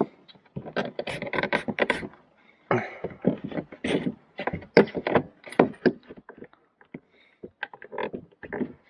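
Irregular plastic clicks, knocks and rustling in clusters, from car interior trim panels being pried and pushed as a wire is tucked behind them.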